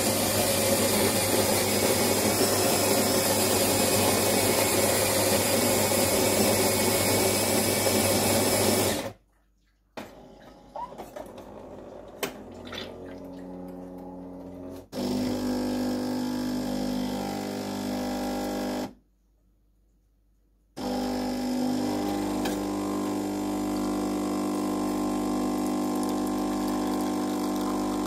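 Melitta bean-to-cup coffee machine grinding beans for about nine seconds, then a quieter stretch with a few clicks, then its pump humming steadily as it brews and dispenses coffee.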